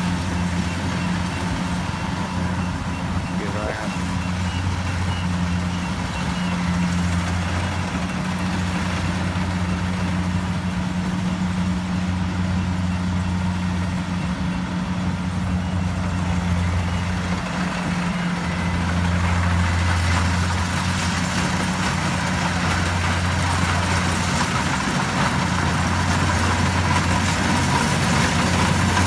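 Kubota DC-70G combine harvester running steadily, its diesel engine giving a deep constant hum, a little louder about two-thirds of the way in.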